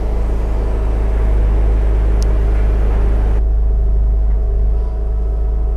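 Bobcat T650 skid steer's diesel engine running steadily while it powers a Ramsplitter six-way hydraulic log splitter. A rushing noise on top of the engine drops away about three and a half seconds in.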